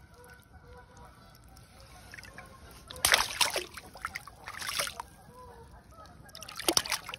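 Water splashing and sloshing as a large roach is held in a landing net at the surface and returned. It comes in three loud splashy bursts, about three, four and a half, and six and a half seconds in, after a quieter start.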